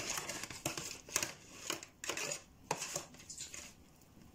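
Disposable aluminium foil baking tray crinkling and scraping in short, irregular bursts as it is handled, fading out near the end.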